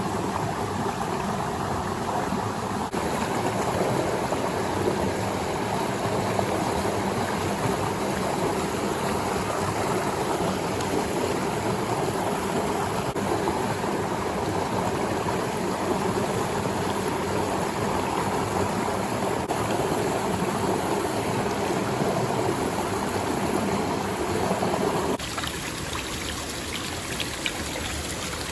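Mountain stream water running steadily. About 25 seconds in the sound cuts suddenly to a quieter, thinner flow of water.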